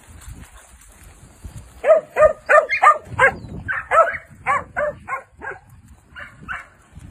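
A working dog barking at sheep: a rapid run of short, loud barks beginning about two seconds in and thinning out near the end.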